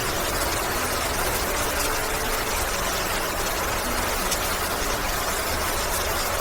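Steady, even noise with a low hum underneath and no distinct events, like a fan or small machine running continuously.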